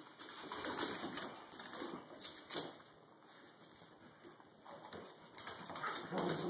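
A Cavalier King Charles Spaniel puppy and two bigger dogs play-wrestling: irregular scuffling of paws and bodies on a tile floor, with soft low grunts or play growls. It is busiest in the first few seconds and again near the end.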